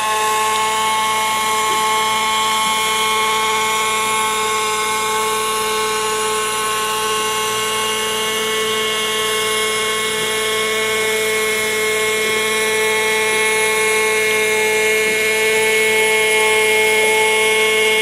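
Radio-controlled model helicopter hovering, giving off a steady high-pitched mechanical whine that lifts a little in pitch and loudness near the end.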